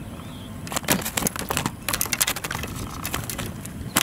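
Irregular sharp clicks, knocks and rustling as a freshly caught fish is handled and unhooked over a mesh landing net on the bank. The clicks come thickest from about one to two and a half seconds in, with a sharper knock at the end.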